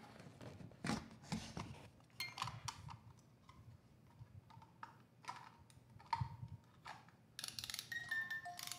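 Snow-globe music box being picked up and handled, with scattered clicks and a few stray ringing notes; about seven seconds in it starts playing its tune, chiming notes over the steady clicking of its mechanism.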